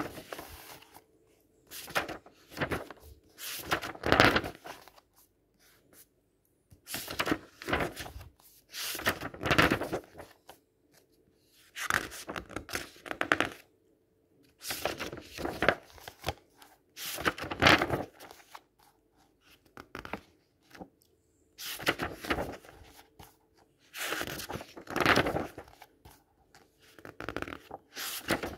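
Pages of a paperback book being flipped by hand: a papery rustle and flap with each turn, in bursts every couple of seconds with short pauses between.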